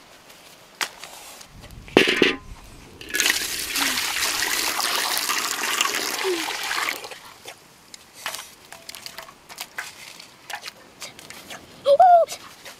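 Water poured into a metal wok, a steady splashing pour lasting about four seconds. Before it comes a single thump, and near the end a short rising-and-falling call.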